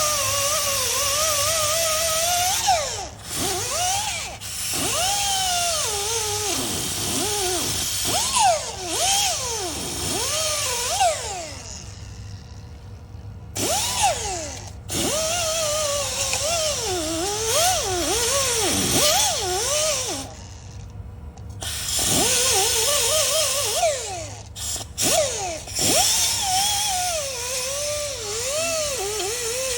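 Handheld rotary power tool, such as a drill or grinder with a buffing pad, run in spurts against metal. Its pitch wavers up and down with trigger and load, and it cuts out for about a second twice, near the middle and again after about two-thirds of the way.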